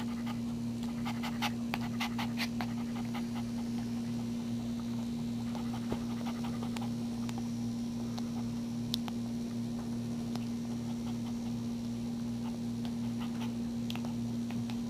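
Mother dog panting after whelping, with small clicks from the newborn puppy suckling, clustered about one to three seconds in, over a steady low hum.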